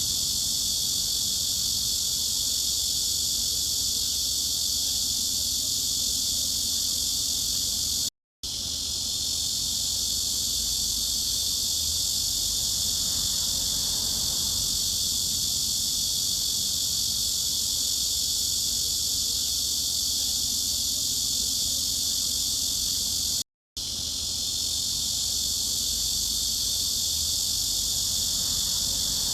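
Cicadas buzzing in a steady, dense, high-pitched drone over a faint low hum. The sound cuts out completely for a split second twice, about eight seconds in and again about two-thirds of the way through.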